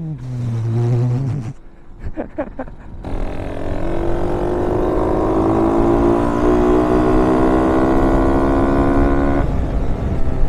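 Minibike engine accelerating hard through a long pull, its pitch climbing steadily for about six seconds before cutting off sharply near the end. In the first second and a half there are shorter revs and a low drone, then a brief lull.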